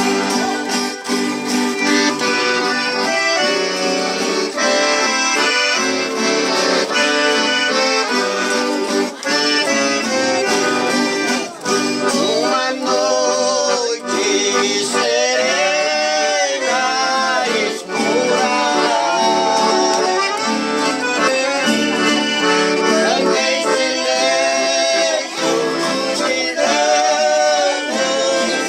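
Accordion playing a traditional-style tune, with held notes and chords; from about halfway in the melody has wavering, gliding notes.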